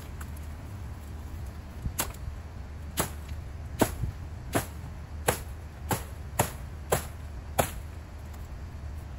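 Machete chopping into palm frond stalks: about nine sharp whacks in quick succession, starting about two seconds in and coming slightly faster toward the end.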